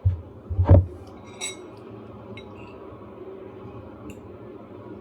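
Two dull thumps in the first second, the second the louder, then one bright clink of glass or china dishware about a second and a half in.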